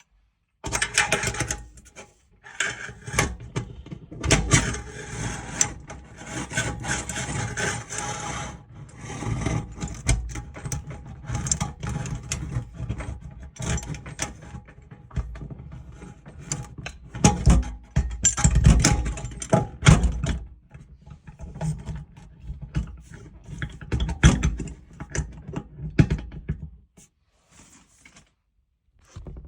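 Fitting a tap on a stainless steel sink: irregular scraping and rubbing of metal parts with frequent knocks. It stops a couple of seconds before the end.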